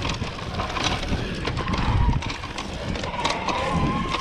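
Shimano Steps E8000 mid-drive e-bike motor whining under pedal assist as the bike speeds up: a thin, steady whine that comes in about a second and a half in. Under it are the rumble of the tyres on a dirt trail and the clicks and rattles of the bike over bumps.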